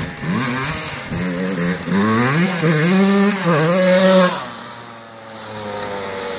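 Dirt bike engine revving hard and climbing in pitch several times as the bike accelerates past, loudest about four seconds in. The pitch then drops and the sound fades as the bike rides away.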